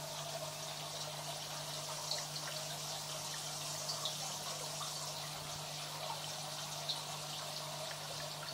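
Water in a large home aquarium trickling and splashing steadily, with scattered small drips and a steady low hum underneath.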